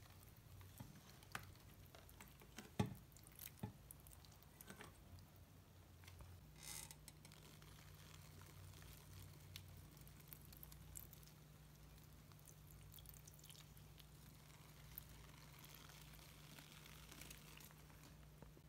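Faint patter and trickle of water sprinkled from a watering can's rose onto potting soil and leaves, with scattered small taps and clicks, a sharper tap about three seconds in, over a low steady hum.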